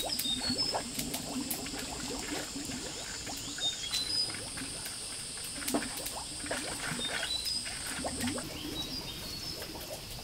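Steady high insect drone with short bird chirps, over scattered clicks and small splashes from a knife working food in a basin of water.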